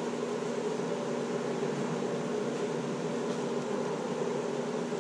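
A 410 cu in stroker small-block Chevy V8 on Holley Sniper EFI idling steadily, during its first start-up after the engine build.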